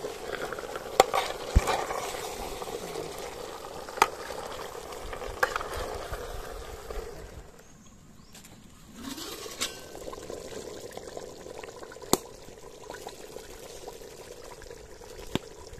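Chicken curry bubbling in a metal pot over a wood fire, with a metal ladle clinking sharply against the pot about six times. The bubbling drops quieter for a moment about halfway through.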